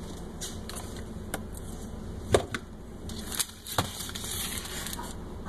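Items being moved about inside a refrigerator: containers knock on the shelves, sharply once a little over two seconds in and again about a second and a half later. Then a cardboard box scrapes as it is slid off the shelf. A steady low hum lies under it.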